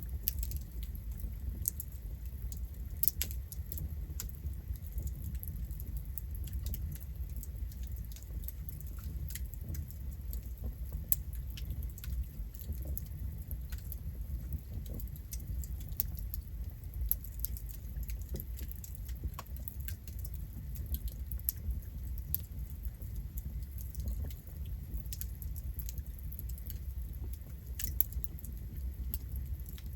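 Campfire burning with a low steady rumble of flames and irregular crackling, scattered sharp pops and snaps from the burning wood, a few louder than the rest.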